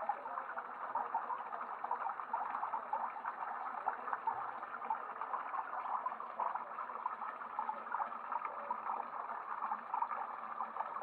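Water running and trickling steadily, a dense patter of small ticks.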